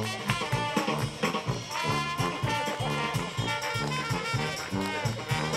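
Live New Orleans-style brass band playing: trombone and trumpets carry the tune over a sousaphone bass line and drum kit in a steady swing beat.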